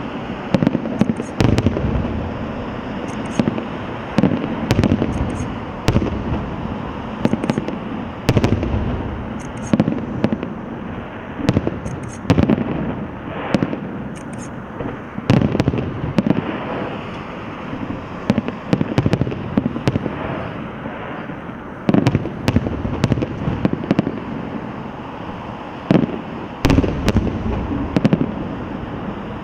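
Aerial fireworks exploding in a rapid, continuous barrage, a sharp bang every second or so over steady crackling and rumbling.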